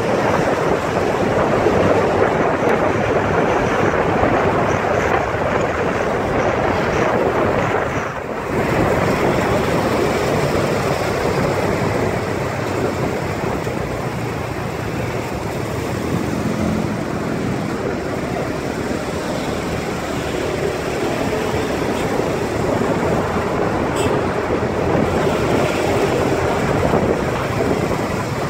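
Steady road and traffic noise from a moving vehicle in city traffic, with wind rushing over the microphone. The noise dips briefly about eight seconds in.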